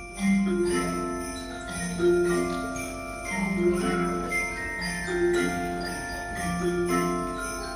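School bell and mallet-percussion ensemble playing a slow Christmas tune, one ringing note after another about every second.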